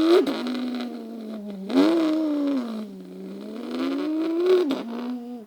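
A person imitating a car engine with his mouth: a buzzing vocal drone that glides up and down in pitch like an engine revving, rising about three times before breaking off near the end.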